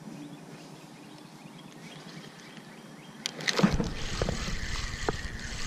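Quiet at first; a little past halfway, a few knocks and then rubbing and rumbling noise on the body-worn camera's microphone as its wearer shifts in the pedal boat seat.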